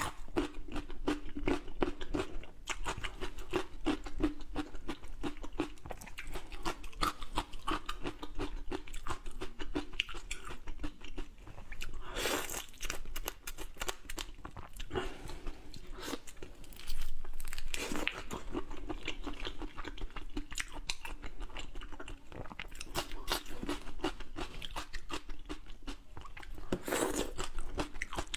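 Close-miked eating sounds: chewing single-clove garlic and biting into whole shell-on prawns. Wet chewing with constant crackling and crunching, and a few louder crunches.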